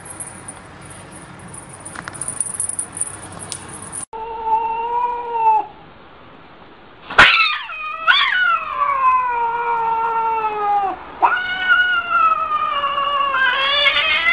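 Cat yowling: after a few seconds of steady hiss, one short meow, then from about seven seconds a run of long drawn-out caterwauls, each sliding down in pitch.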